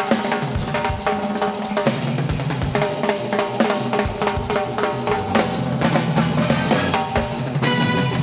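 Live percussion solo: fast, dense strikes on drums and cymbals, with sharp rimshots and ringing drum tones.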